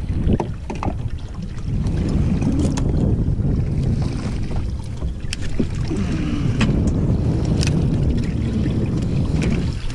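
Wind buffeting the microphone over the rumble of a boat on open water, with a few sharp clicks and knocks scattered through as the rig and reel are handled.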